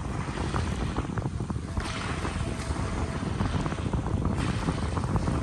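Wind buffeting the microphone over choppy open sea, a steady low rumble that swells in gusts.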